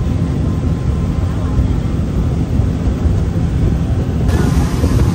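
Engine running with a steady low drone; about four seconds in the sound changes abruptly to a rushing, wind-buffeted stretch.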